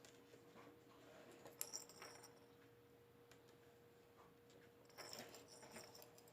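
Near silence with a faint steady hum and soft metallic clinks and rattles, in two short clusters about one and a half seconds in and again near the end.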